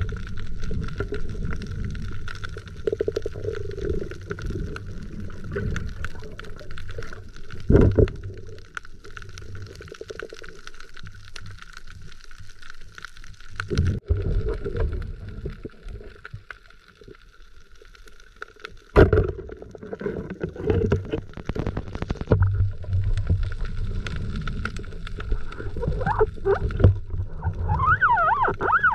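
Underwater sound from a night spearfishing dive: a low rumble of moving water and gurgling, broken by a few sharp knocks, the loudest about two-thirds of the way through. Near the end come a few short wavering squeaks.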